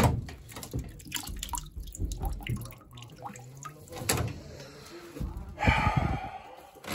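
Metal tools clinking and knocking against boiler pipe fittings, with water dripping. About six seconds in there is a brief louder scraping rush.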